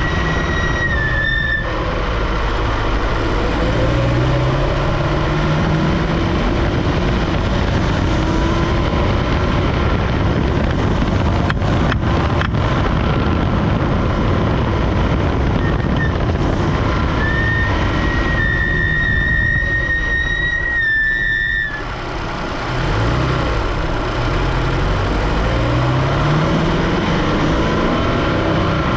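Supercharged Scion FR-S 2.0-litre flat-four engine running, its revs rising and falling. A steady high whistle comes in near the start and again from about 17 to 22 seconds in. The noise comes from the engine bay, and the owner says it comes with engine load.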